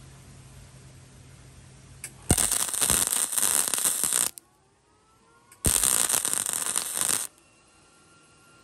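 Flux-core wire-feed welder arcing on a steel bicycle frame tube in two crackling bursts of about two seconds each, a second and a half apart: short trigger pulls to fill a pinhole in the weld bead.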